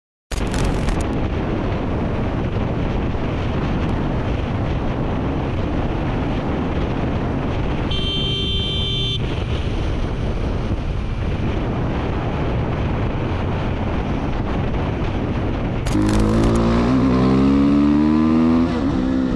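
Motorcycles riding at speed, mostly a steady rush of wind and road noise, with a brief high tone about eight seconds in. From about sixteen seconds in, a dirt bike's engine revs louder, its pitch rising and falling as it accelerates and shifts.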